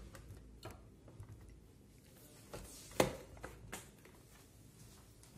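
Glass jar of an Osterizer blender being handled and set up on its base: a few light clicks and knocks of glass and plastic, the sharpest about 3 seconds in.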